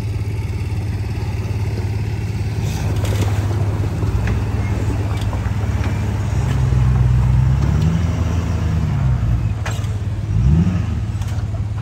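Lifted Ford F-450 pickup's engine running as it drives slowly on a dirt trail. The engine revs up for a couple of seconds past the middle, then gives a quick sharp rev near the end.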